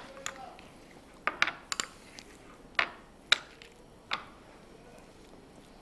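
Metal spoon clinking and tapping against a glass bowl and measuring cup while scooping ghee, about half a dozen sharp taps irregularly spaced over the first four seconds.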